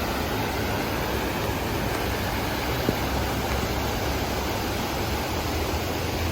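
Steady, even rush of floodwater with a low rumble underneath, and a single short click about three seconds in.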